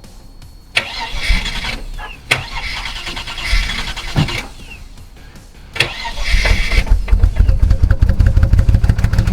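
Holden VT Commodore 304 V8 being cranked on the starter in several short bursts, then catching about seven seconds in and running steadily: its first start after eight years standing, the crank-no-start cured by new fuel line connectors.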